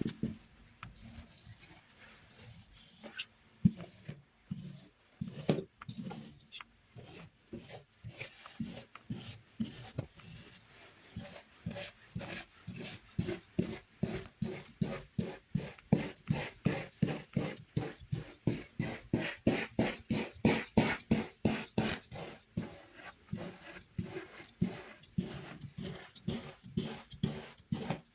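Kinetic sand being cut and scraped with a knife, one short gritty stroke after another. The strokes are sparse at first and settle into a quick run of about three a second from around the middle.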